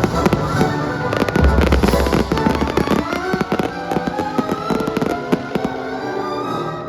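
A fireworks display: rapid bangs and crackles, thickest about one to three seconds in and thinning after, over orchestral music.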